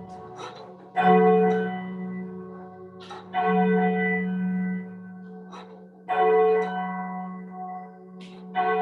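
A single church bell tolling slowly, four strokes about two and a half seconds apart, each ringing on with a low hum and fading before the next.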